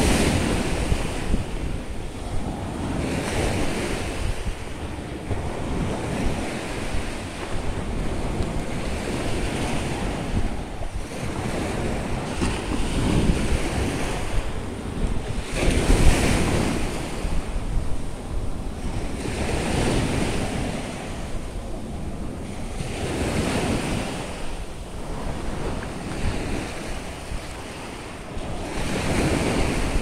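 Small sea waves breaking and washing up onto a sandy beach, the surf swelling and fading every few seconds, with wind buffeting the microphone.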